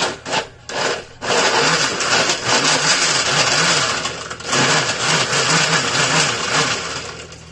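Countertop blender started in a few short pulses, then running steadily as it chops a whole lemon, peel and seeds included, in water; it fades near the end.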